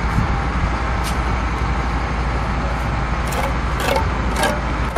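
A few short scraping clicks of a steel bricklaying trowel working mortar against bricks, about a second in and three more between about three and four and a half seconds, over a steady low rumble of site background noise.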